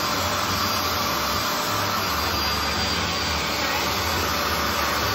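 BISSELL SpotClean Pet Pro 2458 portable carpet cleaner's suction motor running steadily as its hand-tool nozzle is drawn across a rug, a loud, even rush of air with a faint high whine.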